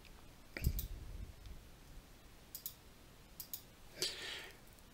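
A few computer mouse button clicks, several in quick pairs, spread over a few seconds, with a short soft hiss about four seconds in.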